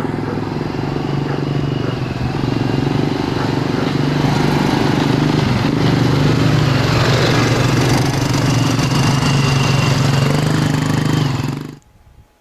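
ATV engine running steadily at a fairly constant pitch, cutting off suddenly near the end.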